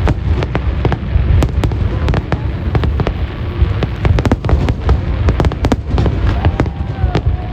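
Fireworks display going off in a rapid, dense barrage: many sharp bangs and crackles a second over a continuous low rumble.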